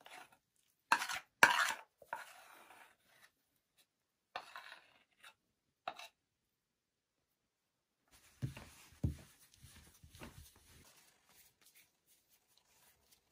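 A metal spoon knocks and scrapes against an enamel bowl as soft, sticky dough is scraped out onto a heap of flour, two sharp knocks loudest early on. After a pause, dull thuds and rubbing as the dough is pressed and turned in the flour by hand.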